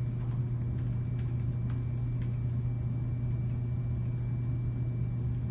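A steady low hum runs throughout. Over it, light laptop keyboard keystrokes tap in the first couple of seconds.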